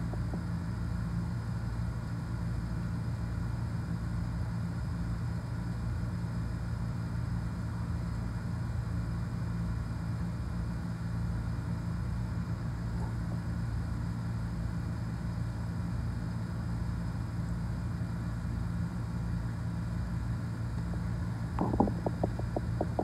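A steady low machine hum with no speech, then a quick run of light clicks near the end.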